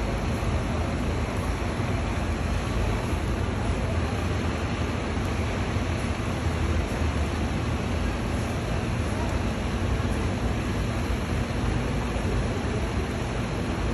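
Steady low rumble and hiss of idling diesel buses and traffic, even throughout with no distinct events.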